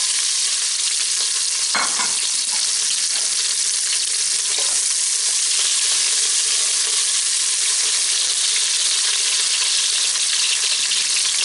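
Diced onion frying in hot olive oil in a stainless steel pot: a loud, steady sizzle, with a few soft strokes as a wooden spatula stirs it.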